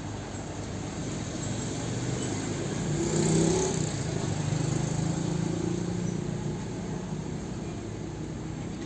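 Engine running steadily, growing louder about three seconds in and easing back a couple of seconds later.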